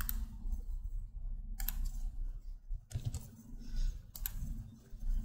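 Computer keyboard typing and mouse clicks: a few sharp, separate clicks spaced about a second or more apart, as a search term is typed and a dropdown item is clicked.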